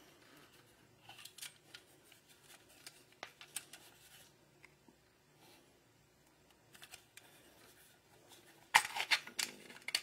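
Hard plastic handling noises from a motion-sensor alarm unit turned over in the hand: scattered light clicks and rubbing, then a quick run of louder plastic clicks near the end as the battery cover comes off.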